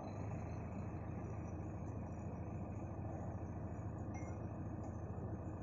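JCB 3DX backhoe loader's diesel engine running steadily at a low, even idle.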